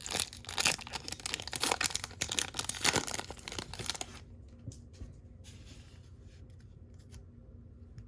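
Plastic wrapper of a baseball card pack being torn open and crinkled for about four seconds, then only faint handling noise as the cards come out.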